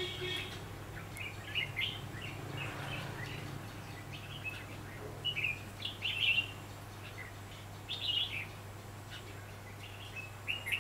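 Red-whiskered bulbuls calling in short bursts of chirping notes, scattered through with gaps between them, over a steady low hum.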